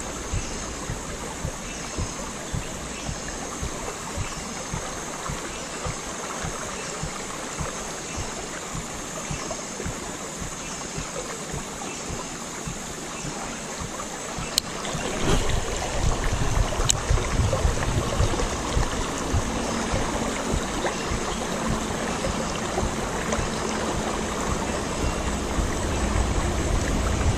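Shallow river running over stones in riffles: a steady rush of water with faint regular ticks. About halfway through, a low rumble comes in and stays, with a couple of sharp clicks around then.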